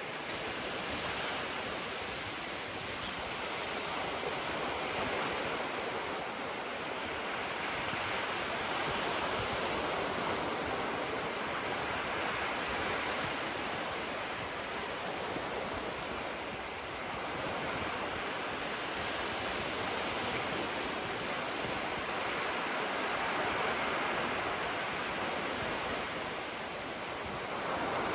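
Gentle surf: small waves breaking and washing on the shore, a steady hiss of water that swells and eases every few seconds.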